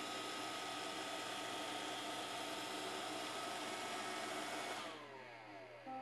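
iRobot Roomba 530 robot vacuum running with a steady whir of its vacuum and brush motors as it drives onto its charging dock. About five seconds in the motors switch off and the whine falls away in pitch as they spin down: the robot has docked.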